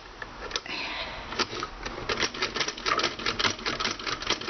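Casige toy sewing machine running, its gears and needle mechanism clicking. A few scattered clicks at first, then from about a second and a half in a fast, even clatter as it sews a chain stitch.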